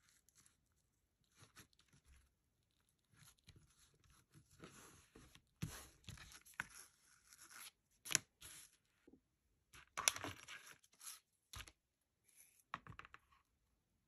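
Faint scratchy rubbing and crinkling in irregular bursts as vinyl mesh fabric is pressed and smoothed by hand onto binding tape laid with double-sided basting tape, with a few sharp clicks.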